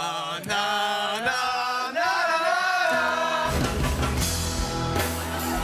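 Several men singing and chanting together in a lively pop chorus. About three seconds in, a heavy bass beat comes in under the voices.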